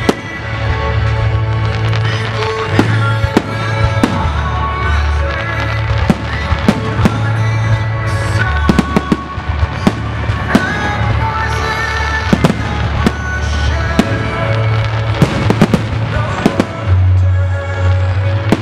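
Fireworks display: aerial shells and comets launching and bursting in sharp bangs, several a second at times, over loud show music with a deep sustained bass.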